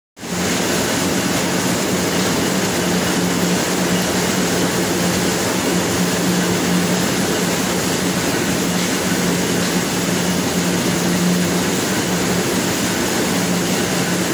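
Corn mill running and grinding corn: a dense, even machine din with a steady low hum underneath, unchanging throughout.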